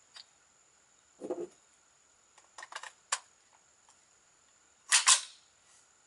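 Mechanical clicks and clacks of a suppressed Ruger 10/22 rifle being handled after its magazine has run empty. A few small clicks come around the middle, then one much louder sharp double clack a little before five seconds in.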